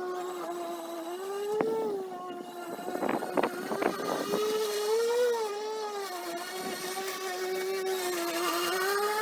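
EGO battery-powered electric lawn mower running as it cuts grass: a steady motor-and-blade hum whose pitch dips and rises slightly with the load. A quick cluster of sharp clicks and rattles comes about three to four seconds in, with a single click before it.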